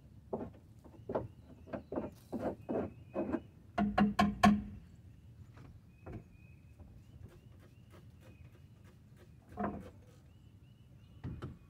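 Scraping and knocking on the wooden roosting bars and nesting box of a chicken coop while they are scraped clean. About eight quick strokes come first, then a louder cluster of knocks about four seconds in, then a few single knocks spaced out.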